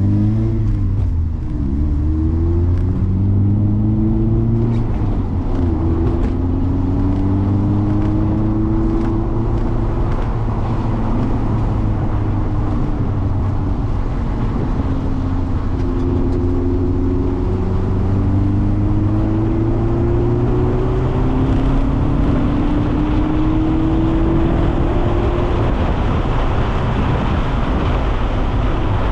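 Mazda MX-5 ND four-cylinder engine heard from inside the car, pulling through the gears on a wet track: its pitch climbs and drops back at each shift, over a steady hiss.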